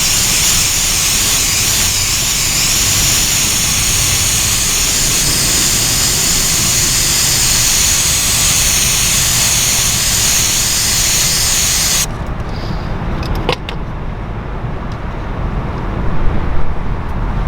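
Air spray gun hissing steadily as it sprays dye onto a repaired vinyl door panel, then cutting off suddenly about twelve seconds in. A low rumble and a few clicks remain afterwards.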